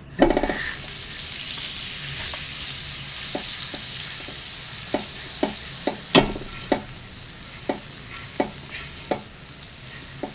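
Butter sizzling on a hot griddle pan as a block of butter is rubbed across it, starting suddenly as it first touches the pan. A steady hiss runs under scattered sharp pops and spits.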